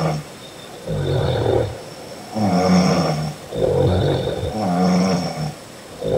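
A woman snoring loudly in her sleep: four rough snores, each about a second long, with short pauses between them.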